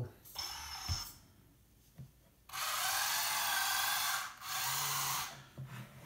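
Electric track drive motors and gearboxes of a 1/14 RC metal hydraulic skid steer loader running as it drives and turns on a wooden floor. A short burst comes about a third of a second in, then a longer run of about three seconds with a brief break near the end.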